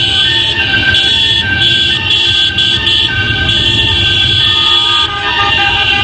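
Car horns sounding in overlapping, held blasts that start and stop, over the low rumble of a slow-moving motorcade and street noise.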